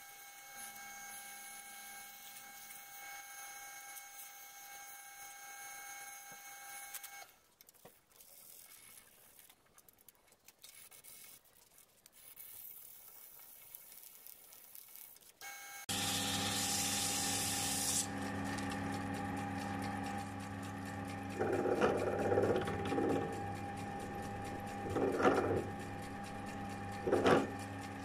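Wood lathe motor running with a steady whine while sandpaper is held to the spinning wooden workpiece; it shuts off about seven seconds in, leaving quiet handling noises. About halfway through the lathe starts again with a brief hiss and runs steadily, with three short louder scraping bursts near the end.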